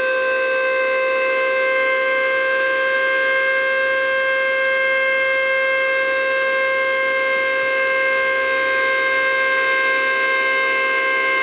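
Outdoor tornado warning siren sounding a loud, steady tone. Its pitch settles just after the start and then holds level without rising or falling.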